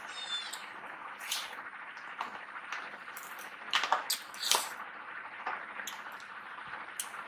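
Metal spoons scraping and tapping against plastic tubs of ice cream fresh from the freezer, with a scatter of sharp clicks, the loudest a little past the middle, and faint eating sounds.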